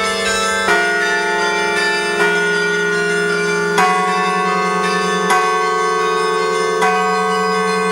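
Bells of a 62-bell carillon ringing a slow sequence of notes, a new bell struck about every second and a half, five strikes in all, each note ringing on under the next.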